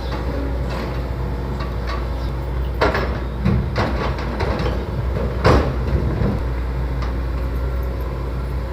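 A maintenance-of-way work train of gondola cars rolling along the rails with a steady low rumble. Several sharp metallic clanks come at about three seconds, around three and a half to four seconds, and about five and a half seconds in.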